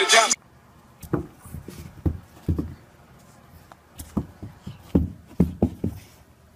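A small dog's paws thudding softly on carpet as it runs and bounces in play: about a dozen dull thumps at uneven spacing.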